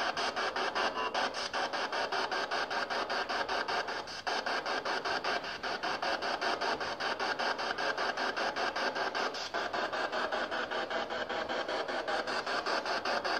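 PSB7 spirit box sweeping through radio frequencies: a steady hiss of static chopped into rapid, even pulses, several a second.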